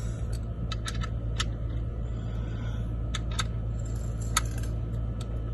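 Scattered light metallic clicks and clinks of a socket wrench being handled and worked on the oil drain plug, over a steady low hum.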